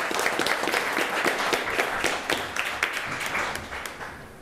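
A small group of people applauding by hand, the clapping thinning out and fading over the last second or so.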